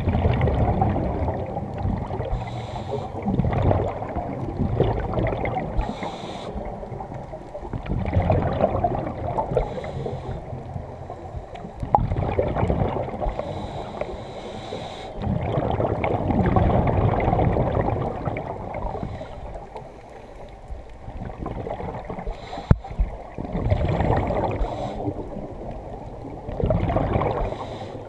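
Scuba regulator breathing underwater: short hissing inhalations alternating with gurgling bursts of exhaled bubbles, repeating every few seconds. A single sharp click comes about two-thirds of the way through.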